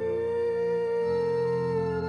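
Music: a long held note over a steady low drone, with the low notes changing about a second in.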